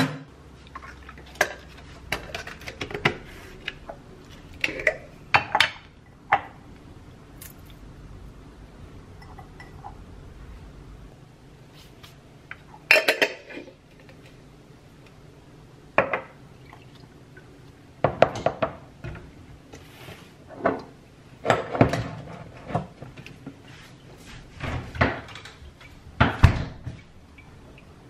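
Kitchen handling sounds: irregular clinks and knocks of a glass bowl, spoon and jars being handled and set down on a countertop, with a few louder bursts of clatter.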